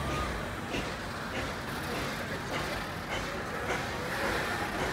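Carriages of the Puffing Billy narrow-gauge steam railway rolling slowly past, their wheels clicking over the rail joints at a regular beat of a little under two clicks a second.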